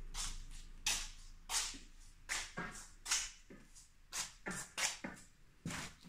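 Footsteps on a hard floor: a string of uneven, sharp taps, about two a second.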